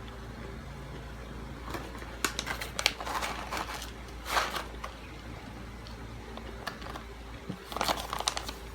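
Eating sounds: utensil clicks and short scrapes against a dish, with close mouth and chewing noises, in two clusters, the second near the end. A steady low hum runs underneath.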